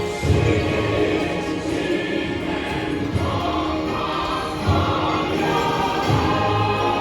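Music with choir-like voices, held chords and a few deep low notes.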